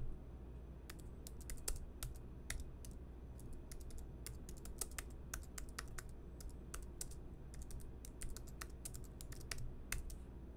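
Typing on a computer keyboard: irregular runs of quick key clicks with short pauses between them.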